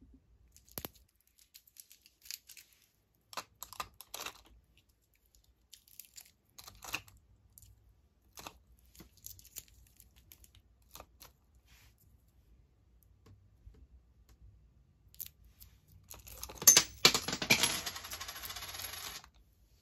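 Scattered light clicks and taps of small candy and plastic pieces being handled, then a dense, louder rattle lasting about three seconds near the end that cuts off suddenly.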